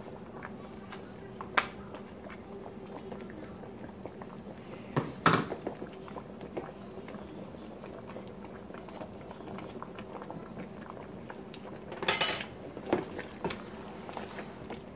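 A pot of soup boiling steadily on the stove, with a metal spoon clinking and scraping against a plastic tub and the pot as seasoning is spooned in; the sharpest knocks come about five seconds in and around twelve seconds in.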